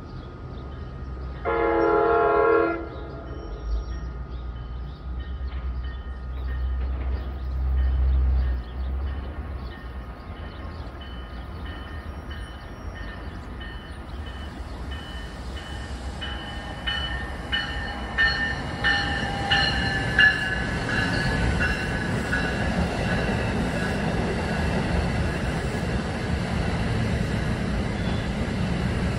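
A train horn sounds one short blast about two seconds in. From about halfway, a NJ Transit Multilevel electric commuter train approaches and runs past on the Northeast Corridor tracks. Its wheel rumble and clicking grow steadily louder as it nears.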